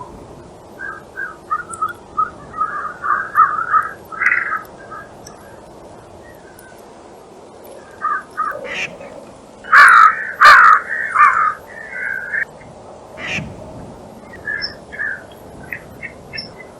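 Wild birds calling in runs of short repeated calls: one run from about a second in to four seconds, a louder run from about eight to twelve seconds, then scattered fainter calls.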